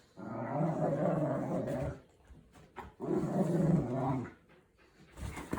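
A pet dog giving two long, drawn-out growling grumbles, each lasting about two seconds, with a short pause between them.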